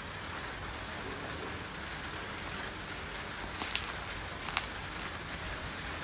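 Plastic wrap on a parcel crinkling as it is handled, with a few sharp crackles about three and a half and four and a half seconds in, over a steady hiss.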